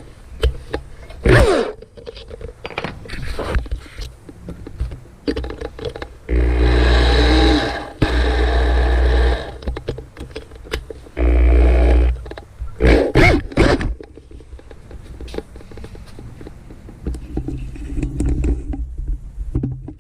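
Three bursts of a handheld power tool running, each a second or so long, the middle two back to back, with knocks and scraping of metal parts and tools in between.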